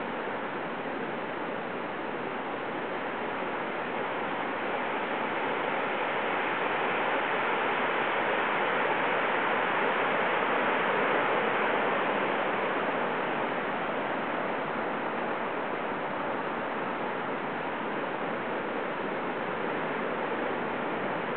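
Heavy surf from typhoon swells breaking on the beach, a continuous rush of water that swells to its loudest about halfway through and then eases.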